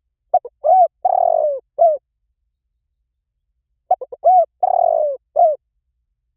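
Spotted dove cooing: two call phrases about three and a half seconds apart, each a few short notes, then a longer coo that falls in pitch, then one short closing note.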